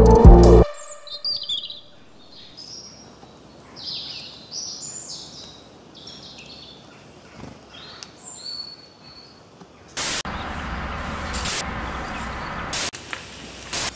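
Small birds chirping in short, high notes. About ten seconds in, an aerosol spray-paint can starts hissing, with a few short louder bursts.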